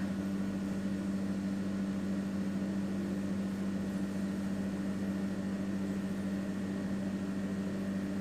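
A steady machine hum with a low tone and an even hiss underneath. It does not change.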